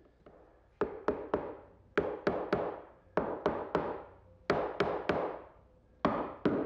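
A mallet tapping glued mortise-and-tenon joints of a walnut frame closed: quick knocks in clusters of two or three, about five clusters, each knock ringing briefly.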